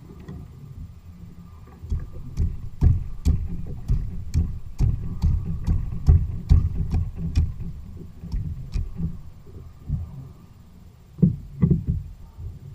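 Rapid, irregular knocks and low thumps on a plastic fishing kayak's deck from a freshly landed California halibut thrashing after being stabbed. They come two or three a second for several seconds, pause, and then a few more come near the end.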